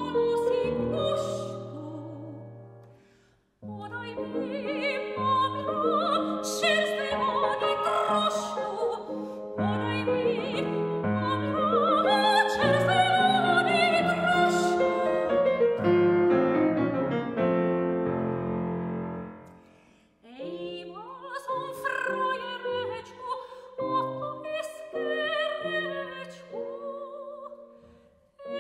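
Soprano singing classical art song in operatic style with grand piano accompaniment. The music dies away and pauses briefly about three and a half seconds in and again about twenty seconds in, then resumes.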